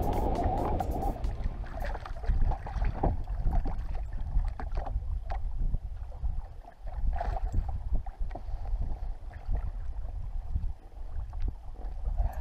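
Wind buffeting the boat-mounted microphone as a steady low rumble, with choppy water slapping and splashing against the hull of a bass boat and scattered short clicks and knocks as a pike is brought alongside and landed by hand.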